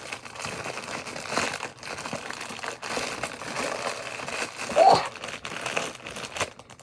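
Plastic packaging crinkling and rustling as squishy toys are handled and unwrapped, with one short louder sound about five seconds in.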